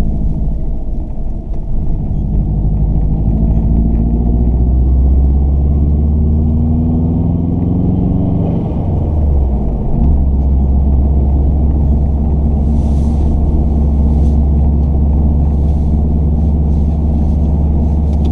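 Subaru driving, recorded on a GoPro's microphone: heavy low wind rumble buffeting the mic, the unwanted noise of the recording. The engine note rises over the first several seconds, dips about nine to ten seconds in, then holds steady.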